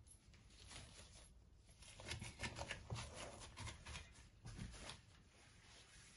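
Faint, irregular squishing and rustling of a plastic-gloved hand kneading and pressing a minced chicken and lentil kebab mixture in a stainless steel bowl, stopping about five seconds in.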